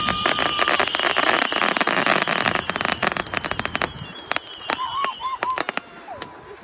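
Consumer fireworks set off from the ground, crackling rapidly and densely, then thinning out after about three seconds into scattered sharp pops. A thin, high steady whistle sounds under the crackle and fades along with it.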